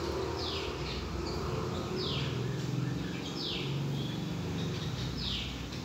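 A bird calling in the background: four short chirps, each falling in pitch, about a second and a half apart. Under them is the low bubbling of coconut milk boiling with the freshly added rice.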